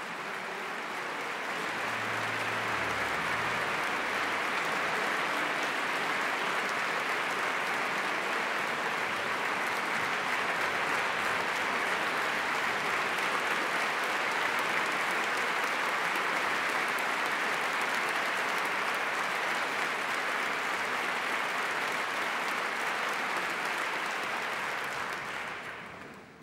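Large concert-hall audience applauding, a dense steady clapping that fades out shortly before the end.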